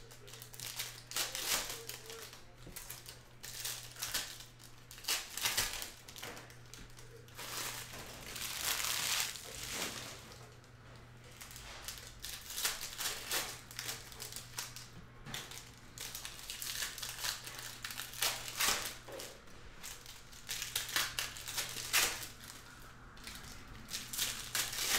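Foil trading-card pack wrappers crinkling and tearing as they are opened by hand, in irregular bursts of crackling.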